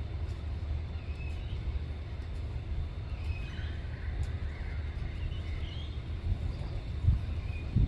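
Outdoor ambience: a steady low rumble with faint, short bird chirps scattered through it, and two dull bumps near the end.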